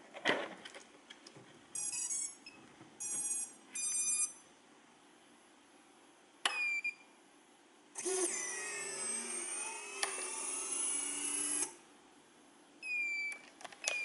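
Electronic beeps and chirps from the radio-control gear being set up: three short beeps about two seconds in, a single falling chirp a little past the middle and more near the end, and in between about four seconds of several whining tones sliding up and down at once.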